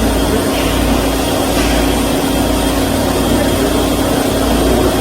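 KOTEC Diamond-1000T high-speed band saw machine running with a steady mechanical hum: a constant tone over a low rumble.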